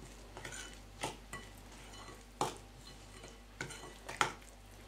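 A spoon stirring cookie dough in a mixing bowl as flour is worked in, with irregular clicks and knocks of the spoon against the bowl.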